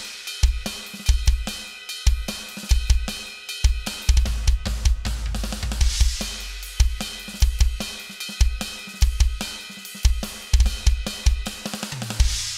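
Drum beat from a Roland TD-30 electronic drum kit, heard from the module's output: kick, snare and hi-hat, with cymbal crashes about every six seconds. It is an EQ example of the kit's sound with the mids removed and then put back in.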